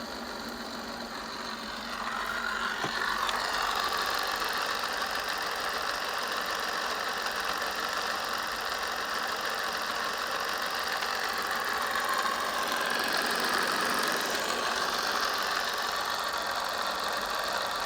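Bafang BBS02 750 W 48 V mid-drive e-bike motor running on the thumb throttle. It gets louder about two seconds in and then runs steadily with a rumbling noise from the small bearing at the end of the drive shaft, a bearing fouled with dirt and water that needs replacing.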